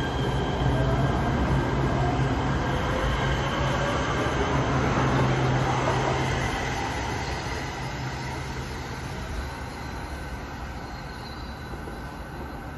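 Light rail train pulling out of the station: the electric motors whine, rising in pitch as it picks up speed over a steady low hum and wheel noise. The sound fades away over the second half as the train leaves.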